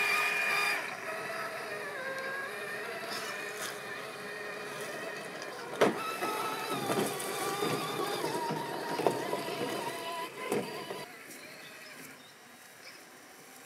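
Electric motor and gears of a 1/6-scale Axial SCX6 RC rock crawler whining, the pitch rising and falling with the throttle as it crawls through shallow water and over rocks. A few sharp knocks of the truck on rock come about six, nine and ten and a half seconds in, and the sound drops lower near the end.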